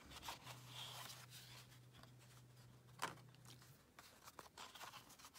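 Near silence with faint rustling and light taps of cardstock being handled on a desk, one slightly louder tap about three seconds in. A faint low hum runs underneath for the first few seconds.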